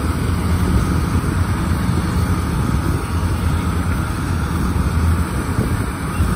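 Engine of a small rice-hauling tractor running steadily as it drives across a harvested paddy, carrying a full load of rice sacks: a low, even hum.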